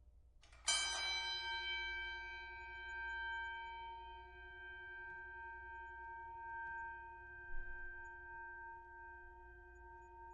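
Boxing ring bell struck once, a single ding about a second in, then a long ring of several clear tones that slowly fades.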